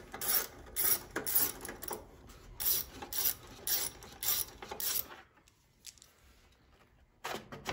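Ratchet wrench backing out bolts on a riding mower's engine cover: a run of quick clicking strokes, about two a second. It stops about five seconds in.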